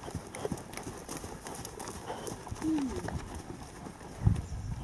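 A horse trotting on an arena's sand surface: repeated muffled hoofbeats, with a louder low thump about four seconds in.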